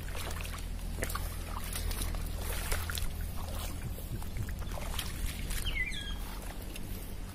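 Ambience of a tidal mangrove mudflat: a steady low rumble with scattered small clicks and wet crackles throughout, and a short high chirp about six seconds in.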